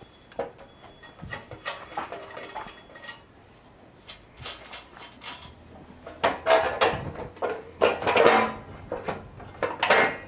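Metal clanking and rattling as the belt cover of a front-tine tiller is worked loose and pulled off by hand, in irregular bursts of clatter, loudest about six to eight and a half seconds in.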